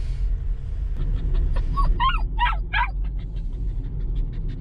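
A puppy whimpering and yipping: about four short, high cries around the middle, over the steady low rumble of the car on the road, heard inside the moving car.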